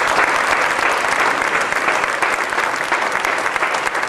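Audience applauding, many hands clapping together in a dense, steady patter that eases off slightly toward the end.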